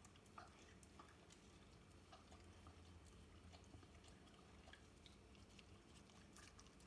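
Faint, irregular wet clicks and smacks of a whippet licking and chewing sticky peanut butter, over a low steady hum.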